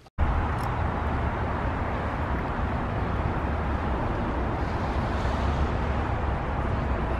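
Steady outdoor noise of a wet parking lot: an even hiss of traffic with a low, uneven rumble under it. It starts abruptly just after the start.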